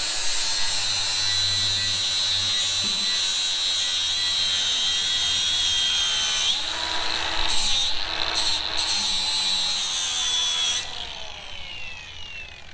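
Cordless angle grinder with a blue abrasive disc grinding an aluminium supercharger casting, a steady high whine that dips briefly as the disc bites. It is switched off about eleven seconds in and its whine falls away as the disc spins down.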